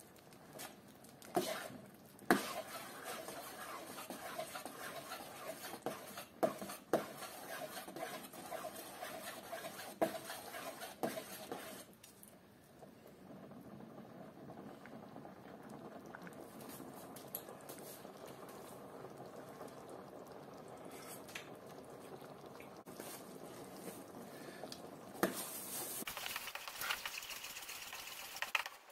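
Sauerkraut soup in a stainless steel pot being stirred with a spoon, with scattered clinks and knocks over the first dozen seconds, then a quieter steady liquid sound with a few more knocks near the end.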